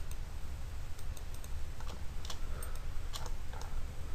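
Scattered, irregular clicks of a computer keyboard and mouse being worked, over a steady low hum.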